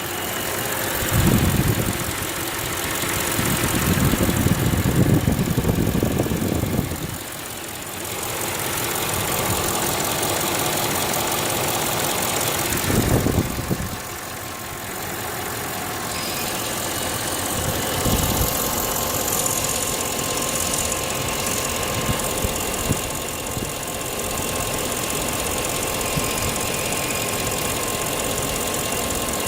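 Audi S8 engine idling and being revved several times: a short rev about a second in, a longer one from about four to seven seconds, and shorter blips around thirteen and eighteen seconds, settling back to idle between them.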